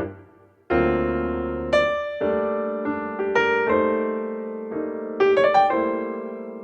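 Piano music: chords and single notes struck one after another, each dying away.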